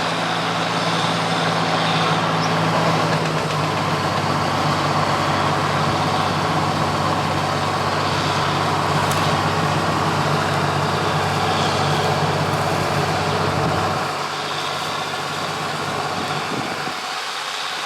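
Gleaner L3 combine running in the field while harvesting corn: the steady drone of its Allis-Chalmers 670T turbocharged six-cylinder diesel under a wash of threshing and machinery noise. About fourteen seconds in the low engine note drops away and the sound gets a little quieter.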